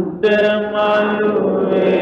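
Buddhist devotional chanting: a voice holding long, drawn-out tones, with a short break right at the start before the next phrase begins.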